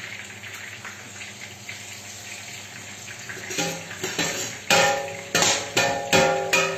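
Eggplant frying in hot oil, a steady sizzle. About halfway in, a quick run of metal clanks with short ringing, as a metal skimmer knocks against the pan and pots.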